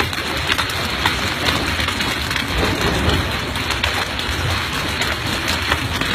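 Hailstorm: hail and heavy rain pelting down in a dense steady hiss, with many sharp ticks of hailstones striking the ground.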